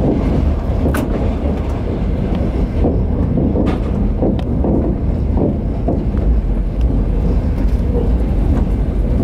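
Trans-Siberian Railway passenger train running along the track, heard from inside the carriage as a steady low rumble with a few sharp clicks.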